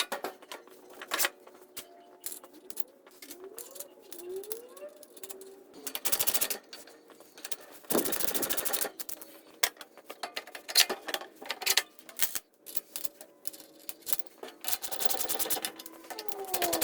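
Ratchet wrench clicking in several fast runs as nuts are tightened onto the axle studs of an aluminum floor jack's wheels, between scattered clicks and knocks of metal parts being handled.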